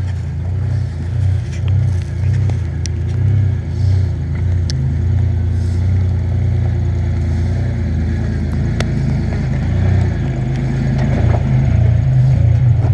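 Toyota Tacoma's engine running under load with the throttle coming on and off as the truck crawls up rock, plus a few sharp clicks.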